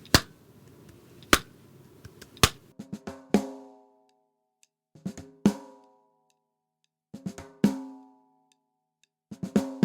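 Three sharp clicks about a second apart, then a four-note swung drum chop played four times on a drum kit: quick grace-like strokes falling onto a ringing accented hit, about two seconds between each repetition.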